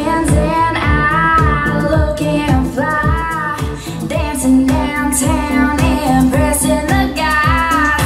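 A pop song with a female singer over a steady bass-and-drum beat, played back through a PA speaker from a Midas MR12 mixer with the room EQ switched off.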